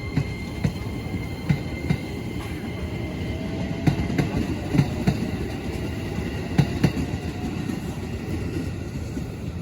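Train passing close by: a steady rumble from the wheels and cars, with sharp clacks, often in pairs, as the wheelsets cross rail joints.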